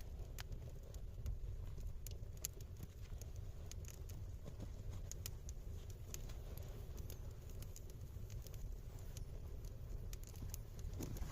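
Campfire crackling, with sharp irregular pops and clicks, over a steady low rumble of wind.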